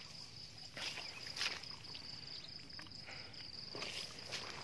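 A steady high insect trill runs throughout, with a few soft rustles and clicks from a fish and fishing line being handled, the most distinct about a second and a half in.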